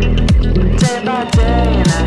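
Background music: a song with a steady beat of deep kick-drum thuds about twice a second, cymbal hits and a pitched melody line.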